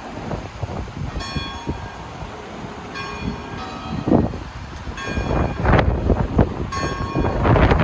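A church bell tolling slowly, about four strokes roughly a second and a half apart, each ringing on. Underneath, hurricane-force wind gusts rumble on the microphone and grow stronger in the second half.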